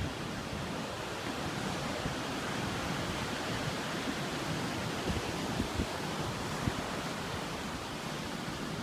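Ocean surf breaking and washing up a sandy beach: a steady, even hiss of waves, with occasional low wind buffeting on the microphone.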